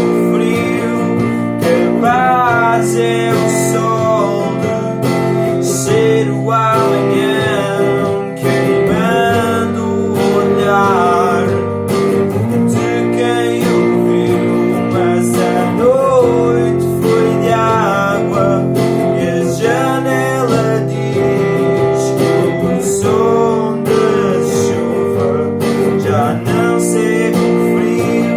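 Acoustic guitar playing an instrumental passage of a song: strummed chords with a wavering melody line over them.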